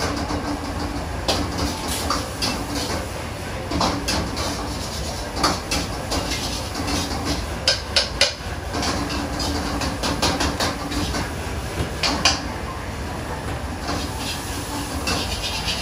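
Stir-frying in a wok over a high gas flame: a metal ladle scraping and clanking against the wok in quick, irregular strokes, over the steady rumble of the burner.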